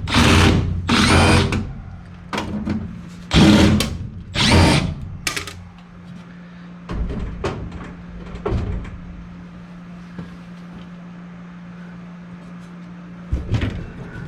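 Handheld power drill running in short bursts, about four in the first five seconds, followed by a few light knocks, over a steady low hum.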